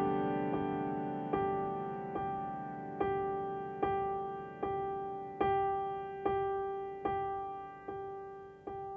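Slow background piano music: single notes struck a little more than once a second, each ringing and dying away, the whole fading out toward the end.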